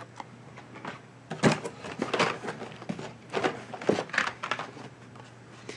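Blister-packed toy cars on cardboard backing cards being handled and pulled out of a cardboard shipping case. Irregular rustles and light clacks of card and plastic start about a second and a half in.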